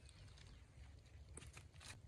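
Near silence, with faint scrapes of soil and dry leaves from digging by hand with a small tool; two short scrapes come near the end.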